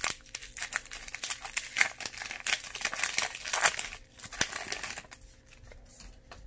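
Foil Pokémon card booster pack wrapper crinkling as it is torn open by hand. Dense crackling for about four seconds, then it dies down to quieter rustling as the cards come out.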